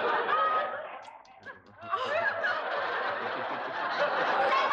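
Studio audience laughing after a punchline. The laughter dies down about a second in, then a second wave of laughter rises about two seconds in and carries on.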